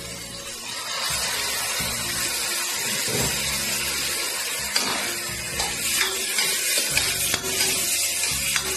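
Wok sizzling as soy sauce is poured into hot lard with fried chilies and vegetables; the hiss swells about a second in and carries on, with scattered clicks and scrapes from a metal wok spatula stirring.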